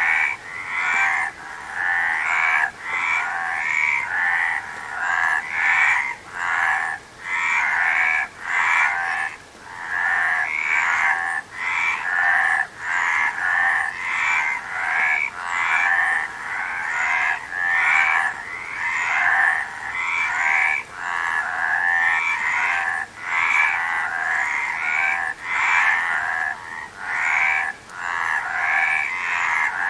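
A chorus of frogs croaking continuously. The overlapping calls pulse in a steady rhythm, with brief lulls about once a second.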